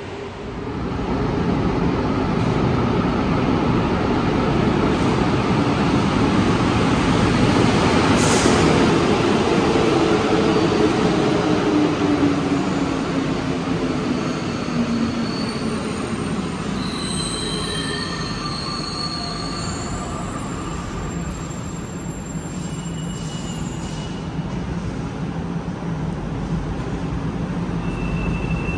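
Rubber-tyred metro train pulling into the station: the noise builds about a second in, then the motor whine falls steadily in pitch as the train slows. Short high squeals come through in the second half as it comes to a stop.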